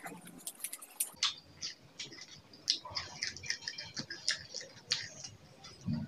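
Close-miked chewing of a crisp fried onion pakora: a rapid run of small crunchy crackles and wet mouth clicks.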